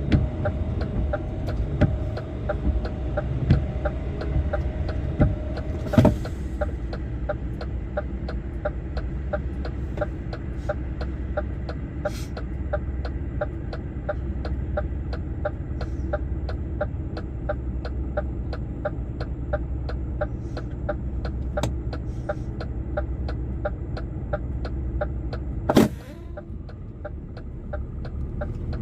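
Lorry engine running in the cab with the turn-signal indicator ticking steadily, about two to three ticks a second, for a left turn. There is a sharp knock about six seconds in and another near the end, after which the engine gets a little quieter.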